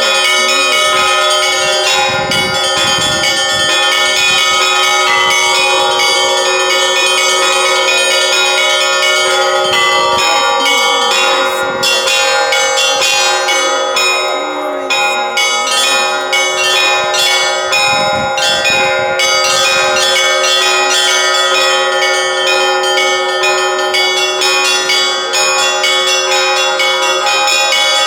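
Russian Orthodox church bells rung by a single bell-ringer: many bells of different pitches struck in a rhythmic pattern, their tones ringing on and overlapping. The small high bells are struck in quick runs, most densely midway through.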